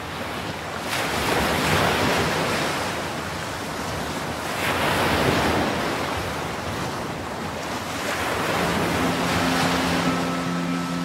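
Sea waves washing up onto a sandy beach, the surf swelling and falling back three times. A low steady musical tone comes in near the end.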